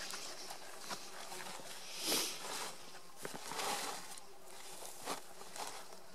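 Rustling and brushing as a chamois carcass is handled with a fabric bag in tussock grass: several short swishes with a few light knocks, the loudest swish about two seconds in.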